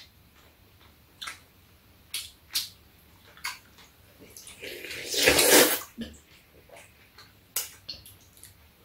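Udon noodles being slurped: one long slurp about five seconds in, the loudest sound here, with scattered short clicks around it.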